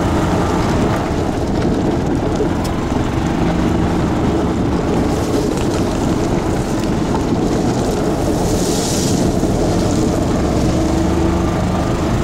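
Golf cart driving at speed over gravel: the drive runs steadily under the crunch and hiss of tyres on loose gravel, with a brief sharper hiss about nine seconds in.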